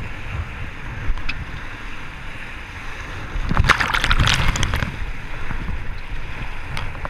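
Muddy whitewater rapids rushing around an inflatable raft, with wind buffeting the microphone. About three and a half seconds in, a wave breaks over the bow and across the camera in a louder splash that lasts about a second.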